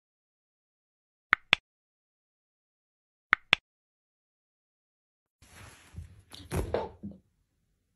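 Two computer mouse-click sound effects, each a quick double click, about two seconds apart over silence; a couple of seconds later room sound comes in with a few dull knocks and handling noises.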